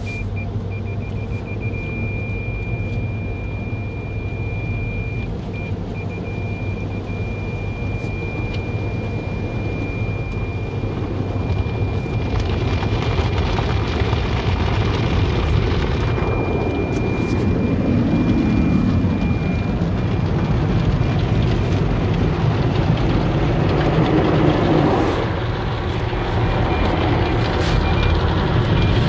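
Automatic car wash heard from inside the car cabin: a steady low rumble with a thin, constant high tone. From about twelve seconds in, louder spraying and washing noise sweeps over the car, swelling and easing.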